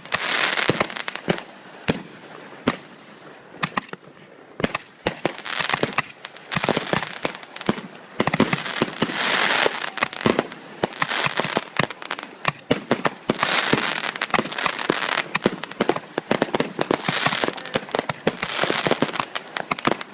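Fourth of July fireworks going off in a continuous barrage: a rapid, irregular string of sharp bangs and pops, with several swells of dense crackling.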